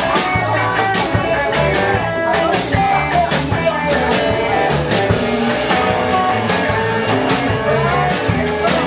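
Live rock band playing an instrumental break: a guitar lead line over steady drums and bass.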